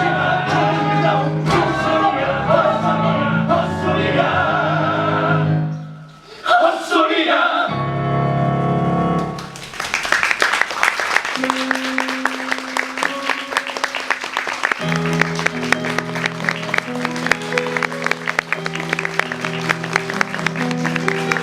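Musical-theatre cast singing together with instrumental accompaniment. The song ends on a held chord about nine seconds in, then an audience applauds while the accompaniment plays on.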